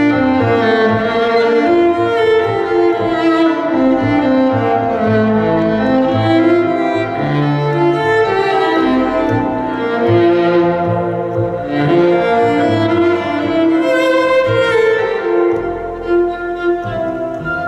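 Instrumental passage on violin: a bowed melody moving from note to note over lower sustained string notes.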